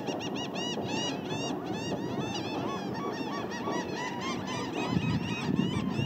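A flock of laughing gulls calling together: a dense chorus of short arching calls, several a second and overlapping, over a steady low rush.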